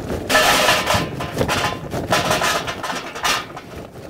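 Unlit charcoal briquettes poured into the metal Slow 'n Sear charcoal basket of a kettle grill, clattering in four or so bursts.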